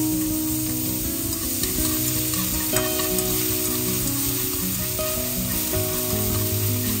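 Minced garlic sizzling in hot oil in a nonstick frying pan, stirred around the pan with a utensil.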